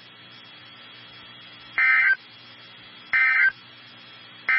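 NOAA Weather Radio SAME end-of-message code: three short, identical bursts of data tones, just over a second apart, over faint radio hiss. They mark the end of the flash flood warning broadcast.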